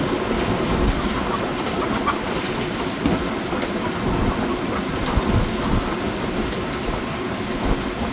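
Machinery running with a steady clattering rumble and light scattered ticks.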